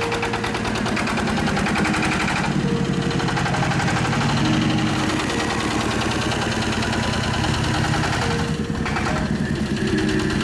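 A vehicle engine running steadily at low speed, its firing a fast, even pulse.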